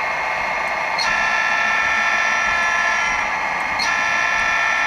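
Sampled EMD diesel prime mover sound from an HO-scale SD40's LokSound 5 sound decoder, played through the small Broadway speaker as it notches up toward the top end, the pitch stepping up about a second in and again near the end. The sound is thin and lacking in bass, as the owner says this speaker gives weak prime-mover output through the notches.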